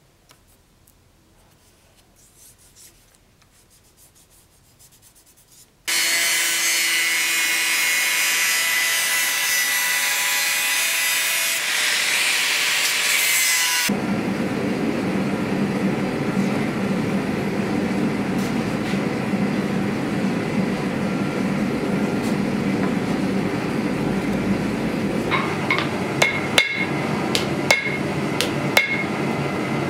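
Faint light scraping, then an angle grinder starts abruptly about six seconds in and grinds steel loudly. A sharp change leaves a lower, steady roar. From near the end, a hand hammer strikes hot steel on an anvil about twice a second, each blow ringing.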